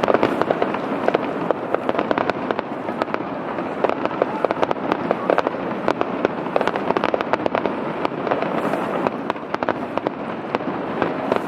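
Aerial fireworks bursting in a continuous barrage: many overlapping bangs and dense rapid crackling from shells going off one after another.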